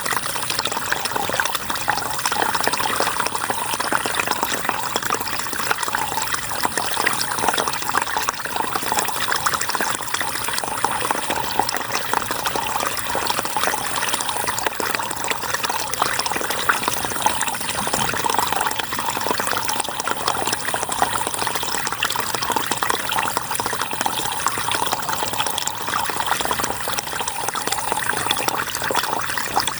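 River water flowing and rushing steadily, an even hiss of running water with no breaks.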